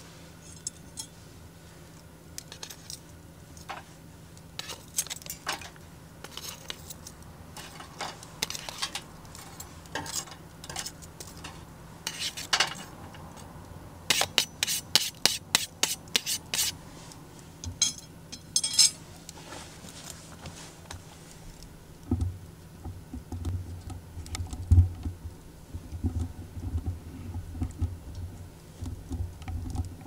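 Metal tongs clinking and scraping on an aluminium mess tin lid as the burning charcoal on top is lifted off: a run of sharp clicks, thickest in the middle. In the last third, soft low thuds and rumbles take over.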